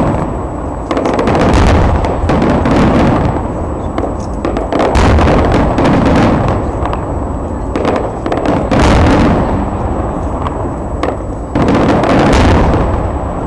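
Fireworks display: a continuous barrage of aerial shells bursting, with booms overlapping one another and crackle in between. Heavier clusters of bangs come at intervals of a few seconds.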